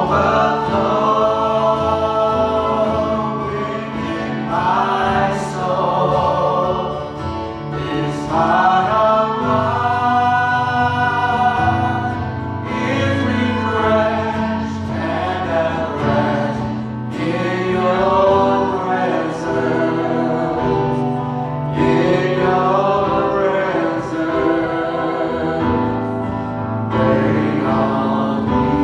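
Worship music: a group of voices singing a gospel-style song in long phrases with held notes, over steady instrumental accompaniment.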